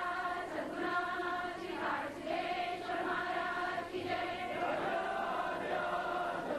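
A congregation singing an arati, a Hindu devotional hymn, together in unison, in held notes.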